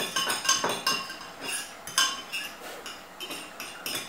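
Metal spoon clinking repeatedly and irregularly against the sides of a glass measuring jug while stirring a stock cube into hot water.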